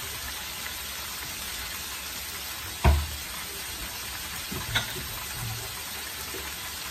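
Food frying in hot oil on the stove, a steady sizzle. A sharp knock, as of a utensil or pan lid against a pan, stands out about three seconds in, with a lighter clack near five seconds.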